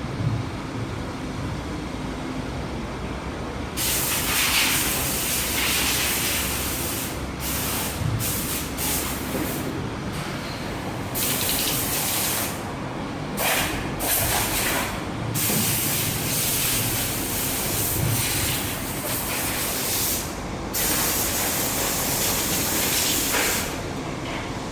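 Automatic soldering machine running with a low hum, joined about four seconds in by a loud hiss that cuts out and returns every second or few, stopping shortly before the end.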